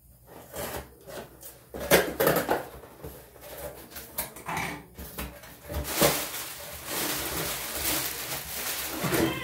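Cardboard shipping box being opened by hand: scrapes and a few sharp knocks as the tape and flaps are worked open, then plastic packing material rustling steadily as it is pulled out over the last few seconds.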